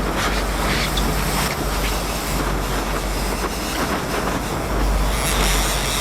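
Steady rumble and hiss of a fishing boat under way: a low engine drone with wind and water noise over it.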